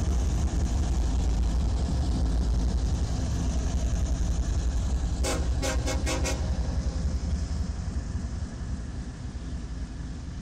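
CSX diesel freight locomotives passing with a heavy low engine rumble that fades as they pull away and tank cars follow. About halfway through, a horn gives a rapid string of about five short toots.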